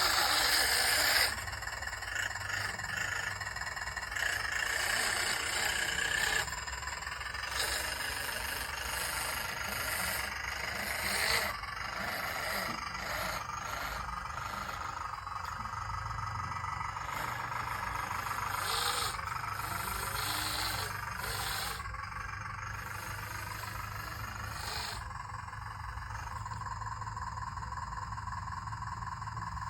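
Small motors of a radio-controlled excavator running as it works, their pitch and level changing every few seconds over a steady low hum.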